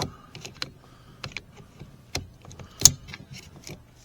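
Scattered clicks and knocks of a screwdriver prying at a power window switch's plastic retaining clips. The sharpest knock comes near the three-second mark.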